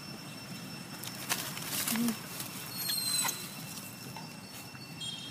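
Macaques moving over dry leaf litter, a short burst of rustling and scuffling, with a few brief high-pitched squeaks about three seconds in.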